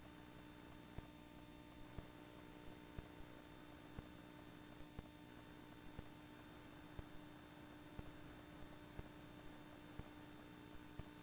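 Near silence: a faint steady hum and hiss, with soft ticks about once a second.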